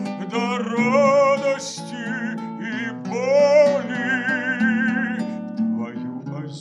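A man singing a slow song, holding notes with a wide vibrato, to his own accompaniment on a bowl-backed, fretted lute-like plucked string instrument.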